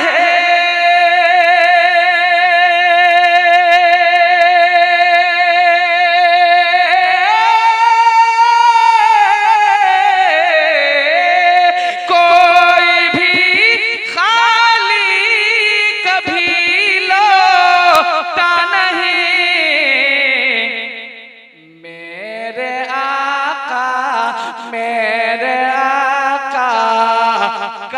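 A man singing a naat into a microphone: he holds one long high note with vibrato for about seven seconds, then winds through a melismatic run of changing pitches. His voice drops away briefly about three-quarters of the way through, then he sings on at a lower pitch.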